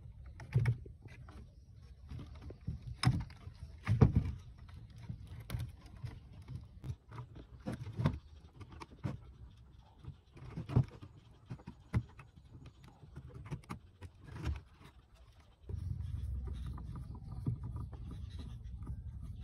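Irregular knocks, clicks and scrapes of a rusted, mud-caked cassette deck's metal chassis and parts being handled and pried apart by hand, the sharpest knock about four seconds in. About three-quarters of the way through, a steady low rumble sets in under the handling noise.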